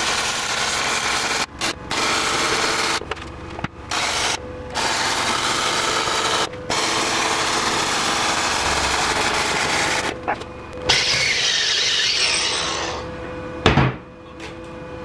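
MIG welder arc crackling as a steel plate is welded into a steel bench top, in runs broken by several short stops. The arc stops shortly before the end, followed by a single knock.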